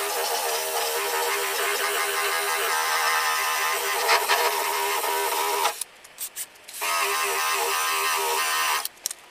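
Cordless drill spinning an abrasive stripping disc against a car door, grinding off old paint and body filler with a steady motor whine and gritty scraping. The tool stops briefly about six seconds in, starts again a second later, and stops just before the end.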